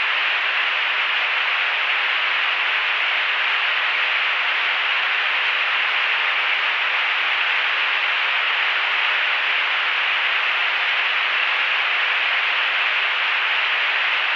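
Steady hiss of radio static on the aircraft's radio and intercom audio, held to a narrow band, with a few faint steady tones under it.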